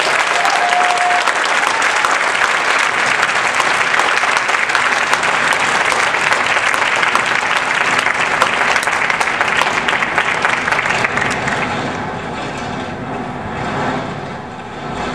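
Theatre audience applauding after a monologue: dense, loud clapping that thins out over the last few seconds.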